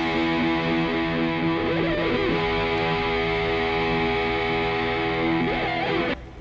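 Background music with distorted electric guitar playing held chords. It cuts off abruptly near the end.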